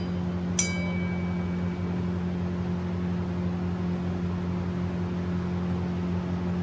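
A steady low mechanical hum throughout, with one sharp metallic clink about half a second in that rings on briefly, as a utensil or oil container strikes the steel cooking pan.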